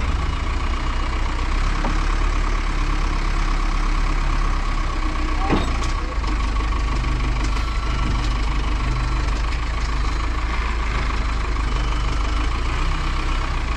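Engine of a rough-terrain block forklift running steadily under load as the machine backs up to pull a stuck plow truck.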